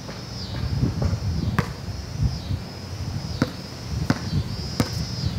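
A ball bouncing on a concrete slab: several separate sharp bounces spaced unevenly, about a second apart, over a steady high buzz in the background.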